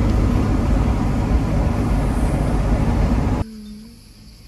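Steady loud road and wind noise of a 4x4 pickup driving at speed, heard from inside the cab. It cuts off abruptly about three and a half seconds in, leaving a much quieter background with a thin, high insect chirr.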